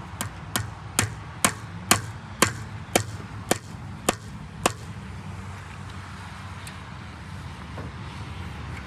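Hammer blows, about ten at roughly two a second, driving staples to fasten fence wire to a wooden post, stopping about halfway through. A low steady hum runs underneath.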